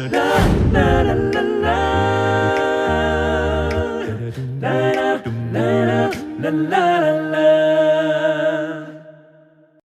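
Voices singing a cappella in harmony, a short jingle that ends on a held chord fading out near the end.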